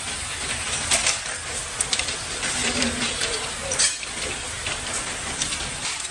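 Factory machinery noise: a steady hiss with several sharp clanks.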